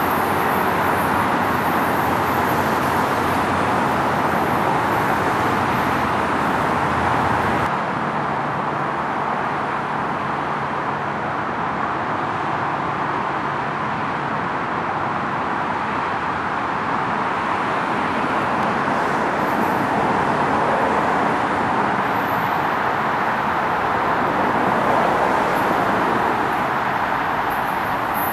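Steady rushing noise of passing trains and traffic, with no distinct events; its character changes abruptly about eight seconds in.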